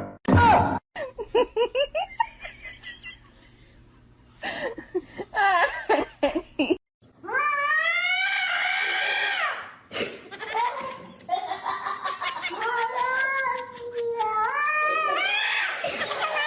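Cats meowing and yowling in a string of short clips, with long drawn-out calls that rise, fall and waver, and some human laughter mixed in.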